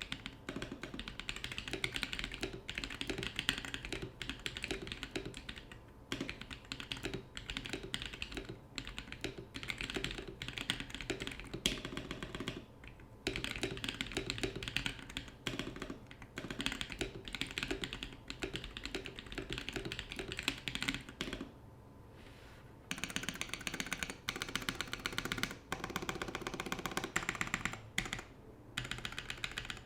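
Rapid typing on a Gamakay K87 mechanical keyboard with YOK Holy Polar Panda tactile switches, their stems and springs lubed with 205g0 and no switch films: a steady run of key presses, with a couple of short pauses.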